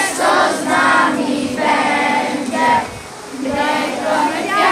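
A large group of children singing a song together, with women's voices among them.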